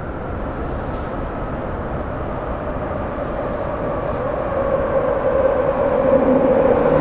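Commuter train approaching along the track toward the platform, its running noise growing steadily louder, with a steady whine.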